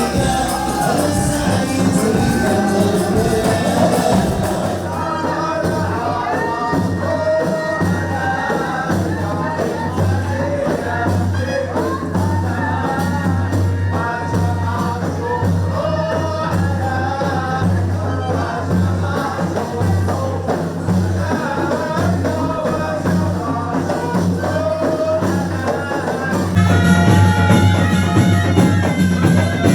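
Music with a steady pulsing beat and a melody line running over it. Near the end it shifts to a louder, fuller passage.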